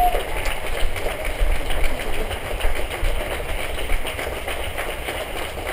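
Low, steady engine-like rumble with a haze of noise and scattered clicks, from the show's electronic sound-design score.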